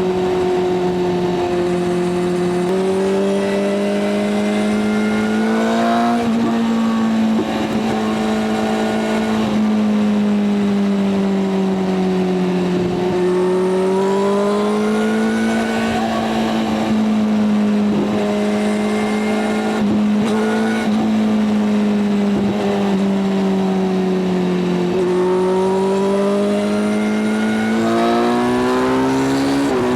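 Kawasaki Z900's inline-four engine running under way at highway speed, its pitch slowly rising and falling with the throttle every several seconds.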